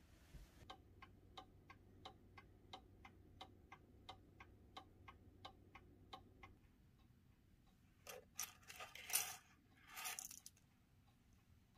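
Walker & Hall mantel clock ticking faintly, about three ticks a second. Near the end, a ring of keys jingles briefly in a few short shakes.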